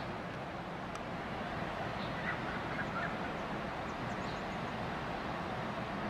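Steady rushing of water from a small landscaped waterfall running over rocks, with a few faint bird chirps about halfway through.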